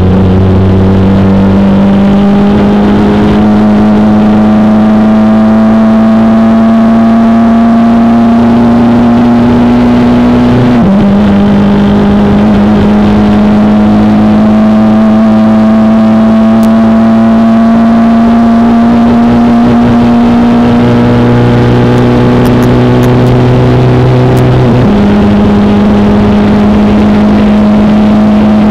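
Motorcycle streamliner's engine at full throttle, heard from inside the cockpit, loud and steady as it accelerates past 200 mph. The engine note climbs slowly and drops back twice, about 11 seconds in and again near the end, as it shifts up through the gears.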